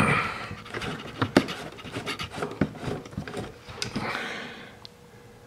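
Handling noise as the rubber-capped oil dipstick is worked out of the fill neck on a Polaris Sportsman 500: scattered clicks and knocks against the plastic body panel, with a breathy rasp near the start and again about four seconds in.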